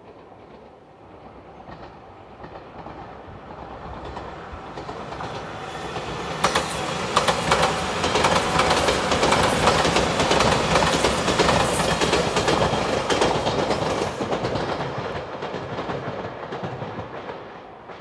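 Five-car JR Shikoku Shiokaze limited express electric train passing, its wheels clicking over the rail joints. The sound builds up, is loudest in the middle as the cars go by, and fades away near the end.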